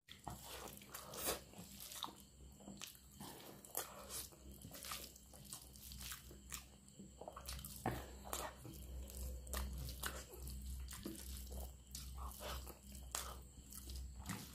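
Close-up eating sounds: a man chewing mouthfuls of rice and potato dal eaten by hand, with many irregular wet clicks from the mouth and the hand.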